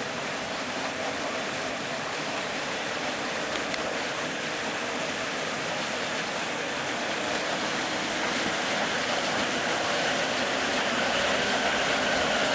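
Two Pelton-wheel micro-hydro turbine generators starting up as the supply valve is opened slowly: a steady rush of water jets that grows gradually louder. A faint steady hum from the units comes in over the last few seconds.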